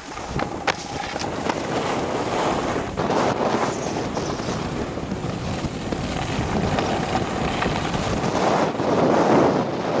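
Wind buffeting the microphone over the rasp of a snowboard sliding on snow, with a few sharp knocks in the first second or so as the board rides a box.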